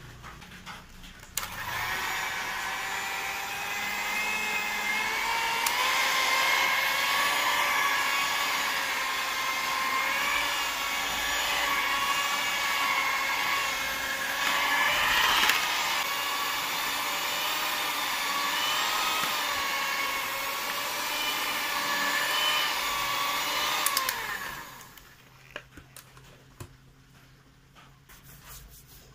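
Electric mixer motor running with a steady whine while mixing bread dough, its pitch wavering slightly under the load. It starts about a second in and winds down with a falling pitch near the end.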